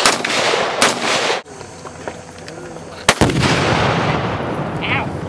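Two shots from an AR-15-style rifle, about a second apart. About three seconds in comes a single loud blast followed by a long low rumble: a Tannerite target exploding.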